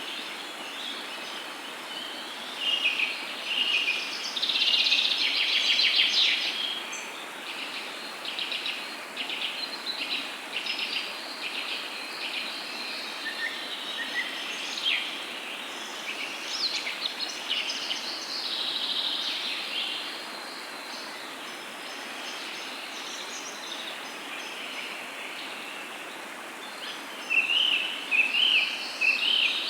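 Nature ambience of several birds singing and chirping over a steady background hiss. The birdsong is busiest and loudest a few seconds in, and again in a flurry near the end.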